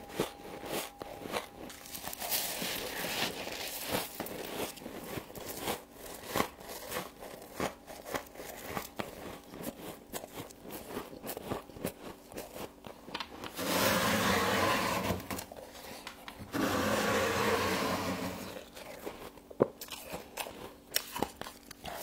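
Frost being crunched and chewed close to the microphone: a run of sharp, irregular crackles, with two louder stretches of steady rough crunching noise about two seconds each, a little past halfway.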